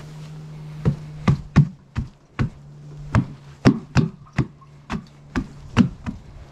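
A series of sharp, hard knocks, about a dozen at uneven spacing, over a steady low hum.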